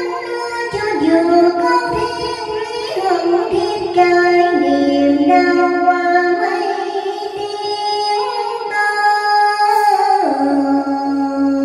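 A woman singing a Vietnamese song into a handheld microphone over backing music, holding long, drawn-out notes that step to a new pitch every second or two.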